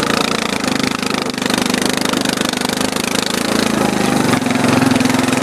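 Arctic Cat 250 ATV engine running steadily while the quad moves across snow towing a rope. Its drone grows louder about four and a half seconds in as the throttle opens.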